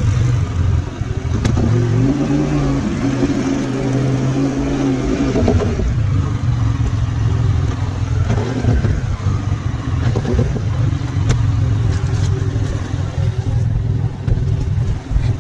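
ATV engine running at low speed as the machine is ridden over snow. It gives a steady hum for a few seconds, then a noisier rumble.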